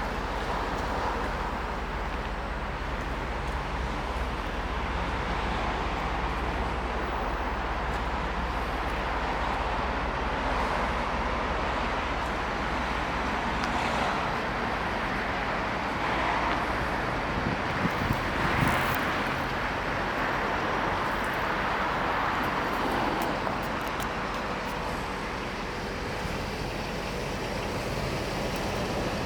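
Steady motor-vehicle noise with some wind on the microphone, with a few sharp knocks about two-thirds of the way through.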